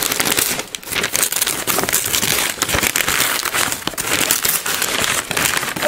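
Christmas wrapping paper being torn off a present and crumpled: a continuous rustling broken by many quick rips.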